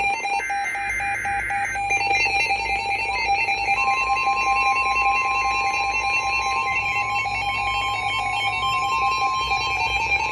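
Emergency Alert System alert tones between broadcast messages: a short warbling data burst about half a second in, then a steady electronic attention tone, with a second, higher steady tone joining about four seconds in.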